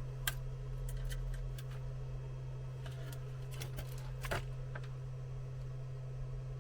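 Scattered light clicks and taps of small tools being handled on a workbench, irregularly spaced with the sharpest about four seconds in, over a steady low electrical hum.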